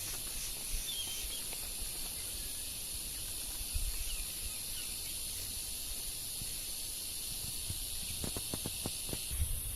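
Tropical forest ambience: a steady, high-pitched drone of forest insects, with a few faint bird chirps early on. Near the end comes a quick run of about eight clicks.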